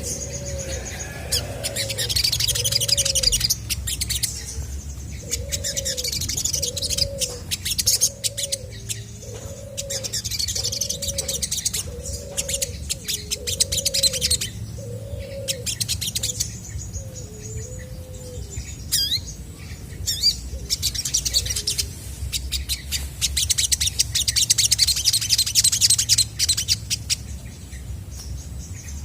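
Olive-backed sunbird singing in fast, high twittering bursts, each lasting a few seconds. A lower arched note repeats about once a second under it for the first half, over a steady low hum.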